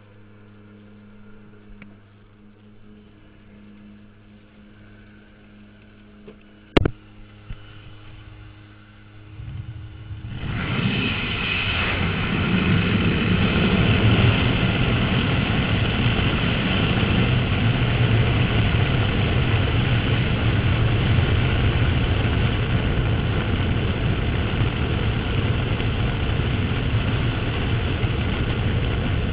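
Jump plane in flight: a low, steady engine drone heard from inside the cabin with one sharp click about seven seconds in, then about ten seconds in a sudden, loud, steady rush of wind and engine noise, as when the jump door is open in flight.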